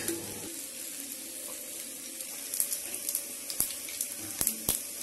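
Mustard seeds and urad dal in hot oil in an iron kadai: a steady sizzle, with the seeds starting to pop about halfway through and sharper separate pops near the end, the sign that the oil is hot enough for the tempering.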